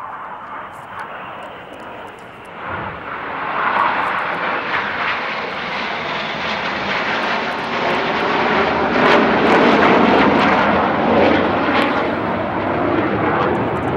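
Formation of BAE Hawk T1 jet trainers flying past with the roar of their turbofans. The jet noise swells from about three seconds in, is loudest around the middle, and drops in pitch as the jets pass.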